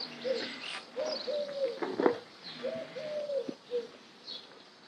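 A dove cooing, repeating short phrases of low, arched hooting notes, with small birds chirping high above it.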